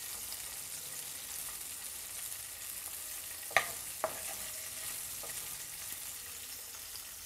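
Green chillies sizzling in shallow oil in a nonstick frying pan while a wooden spatula stirs and turns them. About halfway through come two sharp knocks a moment apart, the spatula striking the pan.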